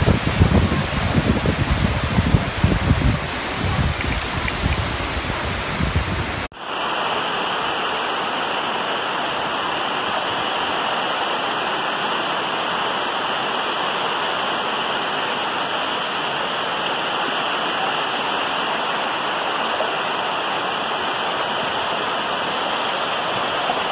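Muddy flash-flood water rushing through a street under heavy rain: a loud, steady wash of noise. In the first six seconds there is uneven low rumbling. About six and a half seconds in, it cuts abruptly to a steadier, hissier stretch of the same torrent and rain.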